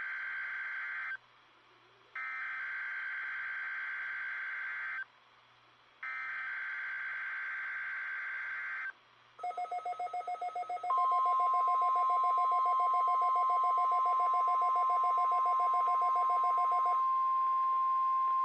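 Emergency Alert System SAME header: three bursts of warbling digital data tones with short gaps between them. About 9 seconds in, a rapid electronic beeping starts. From about 11 seconds the steady 1050 Hz NOAA Weather Radio warning alarm tone sounds loudly, and the beeping stops near the end.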